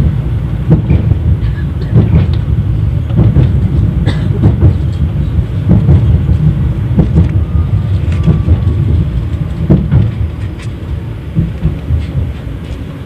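Running noise inside a 71-931 Vityaz tram moving along the track: a steady low rumble with irregular sharp clacks of the wheels over the rails. It grows quieter near the end.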